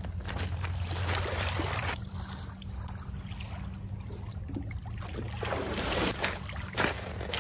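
Small waves lapping on a pebble shore, with wind rumbling on the microphone. Near the end come splashing footsteps wading through shallow water.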